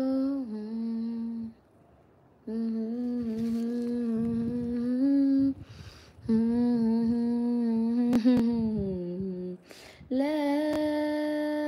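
A woman humming a slow tune in four long phrases with short breaks between them. Each phrase is made of steady held notes that step up or down in pitch. A couple of sharp clicks come about eight seconds in.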